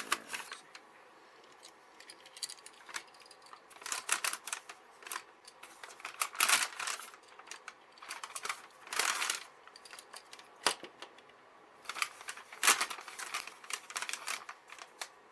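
Scattered clicks, taps and short scraping rustles from hands working a wall light switch and its wiring, with the busiest clusters of clicks about four, six and a half, nine and twelve and a half seconds in.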